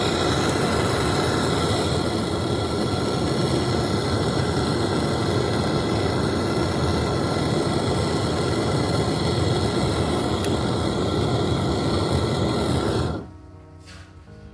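A loud, steady machine-like noise with several steady tones over a hiss, which cuts off suddenly about 13 seconds in.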